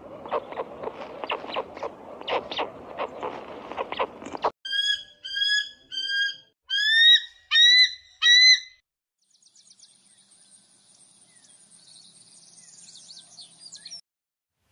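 A red kite's whistled calls: a run of short notes, each bending in pitch, the later ones loudest, coming after several seconds of noisy rustling with irregular clicks. A faint high hiss with small chirps follows and stops shortly before the end.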